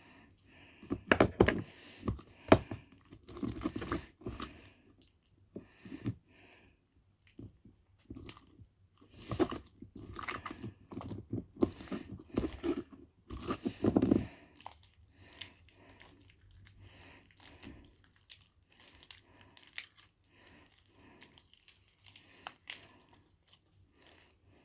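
Glue slime being kneaded and worked with activator by hand: irregular sticky clicks and crackles. There are two busy spells, the first starting about a second in and the second around ten to fourteen seconds in, and the sound is fainter after that.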